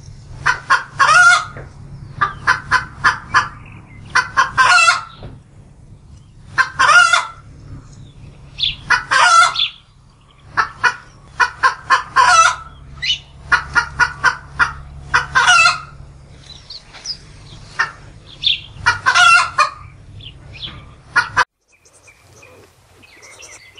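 A chicken cackling: groups of quick clucks, each ending in a longer, louder call, repeated about every two seconds.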